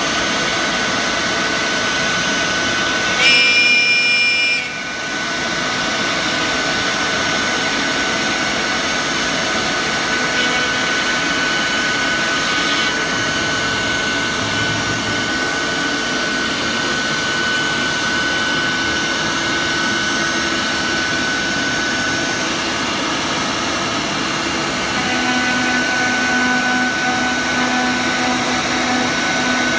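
CNC router spindle cutting a SIP (structural insulated panel), a steady mechanical whine. About three seconds in it turns louder and higher for a second or so, then drops briefly. Near the end a lower hum joins in.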